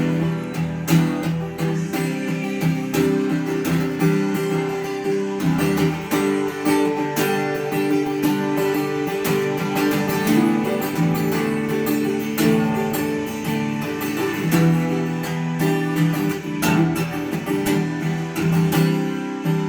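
Instrumental acoustic guitar music, picked and strummed with a steady beat.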